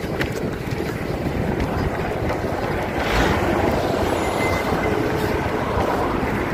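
Road traffic passing close by: a semi-truck and then a car going past, the rush of engine and tyre noise growing louder about three seconds in.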